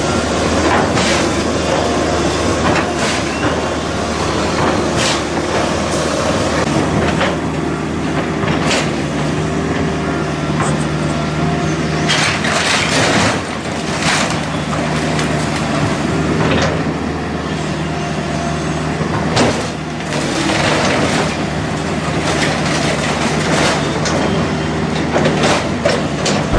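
Kobelco hydraulic excavator's diesel engine running steadily under load, with many crashes and cracks of breaking timber and falling debris from a wooden house being torn down.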